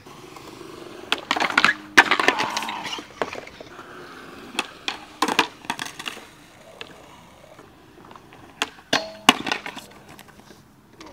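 Skateboards clattering on concrete: sharp clacks and slaps of boards hitting the ground in three clusters, about a second in, around five seconds and around nine seconds, over wheels rolling. These are handrail trick attempts ending in bails.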